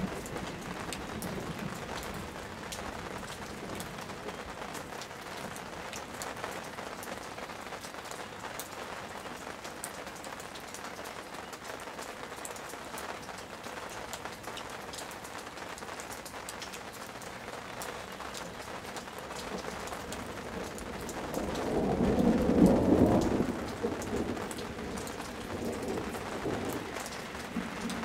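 Steady rain falling on leafy plants, a continuous hiss with many small drop taps. About 22 seconds in, a roll of thunder swells and dies away over two or three seconds.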